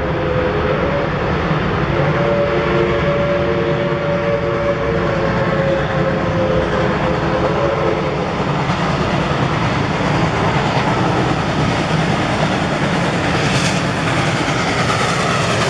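Steam locomotive whistle, Reading & Northern 4-6-2 #425, blowing in two long blasts that end about halfway through. A steady rumbling noise runs underneath, and near the end the noise of the approaching locomotive grows.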